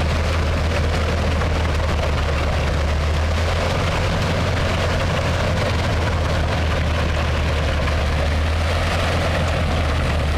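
Tractor-driven Eschelbach Biber wood chipper running steadily: a deep, constant engine drone under a dense rushing noise.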